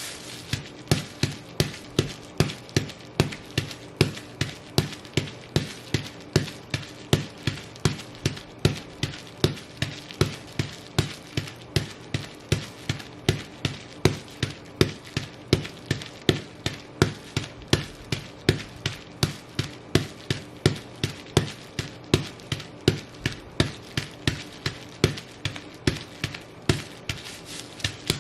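Ugg boots with fur over them stomping on bubble wrap in a steady rhythm of about two steps a second, each step a sharp crushing pop.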